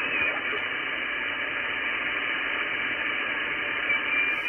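Icom IC-7300 HF transceiver's receiver audio: steady band-noise hiss from the 20-metre band in upper sideband while the main dial is turned. A brief faint whistle comes near the start and again near the end.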